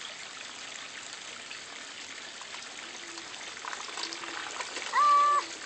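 Steady trickle of running water at a koi pond. About five seconds in there is a short, loud, held pitched sound lasting about half a second.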